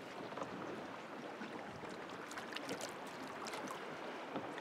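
Wind and small waves lapping against the side of a bass boat, with a few faint ticks and light splashes in the middle.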